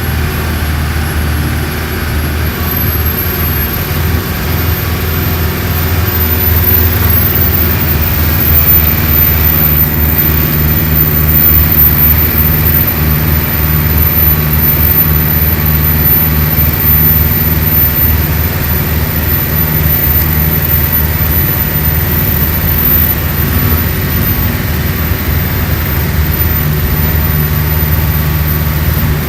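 Diesel engine of a Mercedes-Benz OF-1417 bus running steadily, a deep hum with a faint high whine that rises over the first few seconds and then holds.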